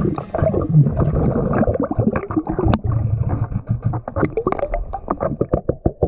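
A diver's exhaled air bubbling and gurgling from a surface-supplied (hookah) breathing regulator, heard underwater, with many irregular crackles and pops.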